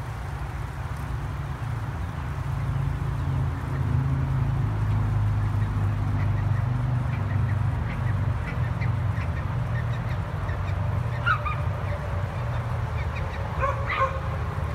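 Short fowl calls from the roosters, sparse at first and coming in quick succession over the last few seconds, over a steady low engine hum.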